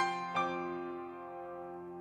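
Solo piano playing a slow introduction: a note struck at the start and another about half a second in, then the held chord slowly dying away.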